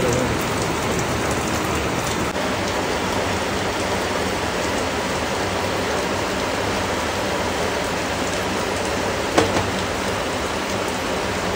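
Heavy rain pouring steadily onto a tiled courtyard and foliage, with a single sharp tap about nine seconds in.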